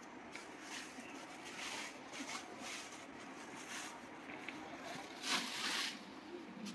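Clear plastic wrapping rustling and crinkling as it is handled and pulled off a leather trolley case, in a series of bursts, the longest and loudest a little after five seconds in.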